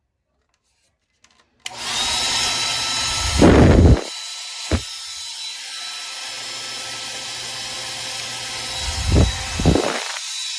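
Dxliwky ionic hair dryer switched on, running with a steady rush of air and a thin high whine. About two seconds later it drops to a quieter, steady run, with a few low thumps along the way.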